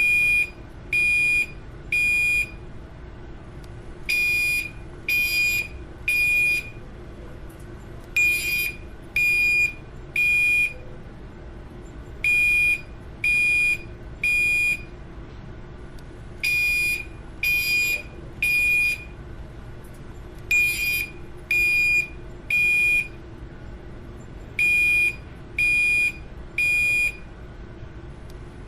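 Building fire alarm sounding a high-pitched electronic beep in repeating groups of three, about one beep a second with a longer pause after each group: the temporal-three evacuation signal.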